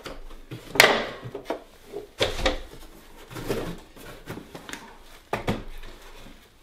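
Plastic clunks and clicks of a Festool dust extractor being opened to take the dust bag out, a series of knocks from its latches and lid, the loudest about a second in.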